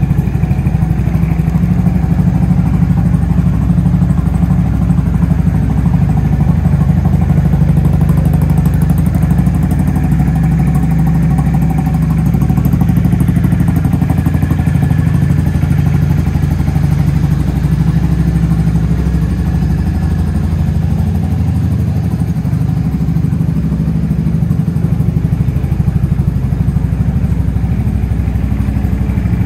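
Honda Forza Z (MF08) scooter's single-cylinder four-stroke engine idling steadily through an aftermarket muffler.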